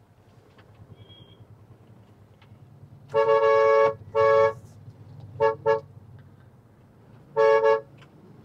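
A car horn sounding five times: a long blast, a shorter one, two quick taps, then another short blast, honking for a vehicle ahead to give way. A low engine and road hum runs underneath.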